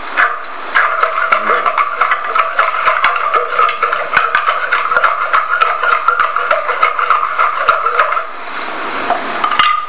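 A played-back recording of dense, irregular clattering and rattling, the sound chosen to evoke cream being shaken in a closed tin can to churn butter by hand. It stops about eight seconds in.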